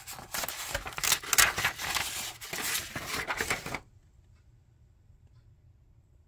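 Paper instruction sheets rustling and crackling as they are handled and unfolded. The sound stops abruptly about four seconds in, leaving only a few faint ticks.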